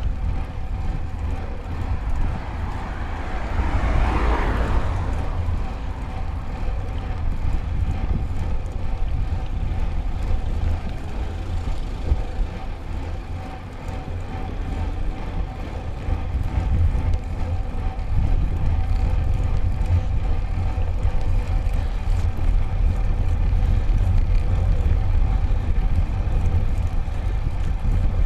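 Wind rumble on a handlebar-mounted camera and tyre noise from a road bike riding along a road. A passing vehicle swells and fades about four seconds in.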